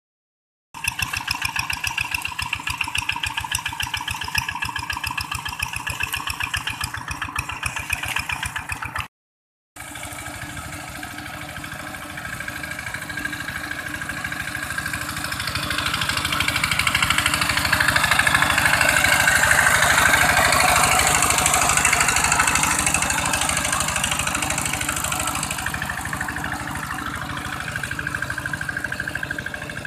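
Single-cylinder diesel engine of a two-wheel hand tractor running steadily with a fast, even beat as its cage wheels churn through flooded paddy mud. The sound cuts out for a moment about nine seconds in. A rushing, splashing noise of churned water swells in the middle and then eases.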